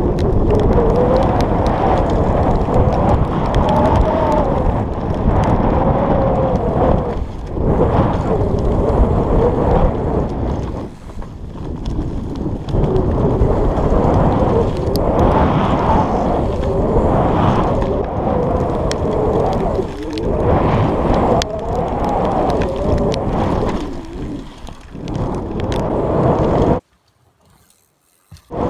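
Nukeproof Scalp downhill mountain bike ridden fast down a rough dirt trail: a dense rumble of tyres and bike rattle over the ground, mixed with wind rushing over the exposed camera microphone. Near the end the sound cuts out for about two seconds, then comes back.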